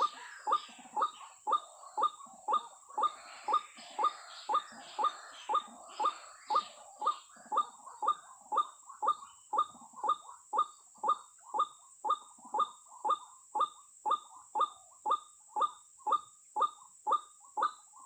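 White-breasted waterhen (ruak-ruak) calling: one short note repeated monotonously about twice a second throughout, over a steady high-pitched hiss.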